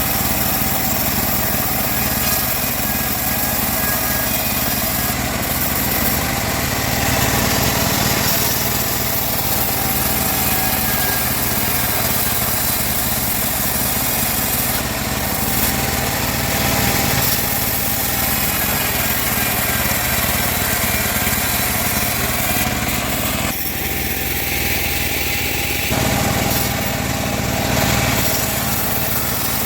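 Bandsaw running steadily while cutting wood: a loud, continuous machine drone whose tone dips briefly about three quarters of the way through.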